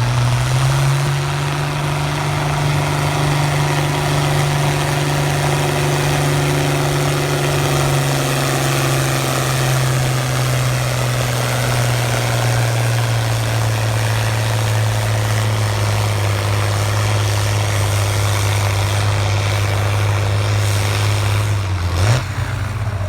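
International Harvester 1466 tractor's turbocharged six-cylinder diesel pulling a sled under full load. The engine note holds loud and steady and slowly drags lower over the run, then about 22 seconds in it drops off sharply as the power is let off.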